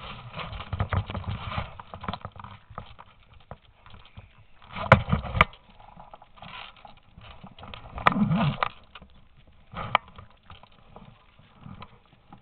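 Irregular footsteps and handling noise from a handheld camera being carried across a debris-strewn tile floor, with two sharp clicks about five seconds in.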